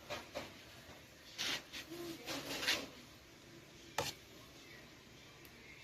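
Scattered handling noises: a few short rubs and clicks, then one sharp knock about four seconds in. There is no grinder motor running.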